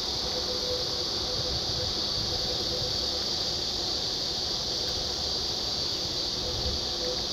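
Steady, high-pitched chorus of insects droning without a break, with a low rumble underneath.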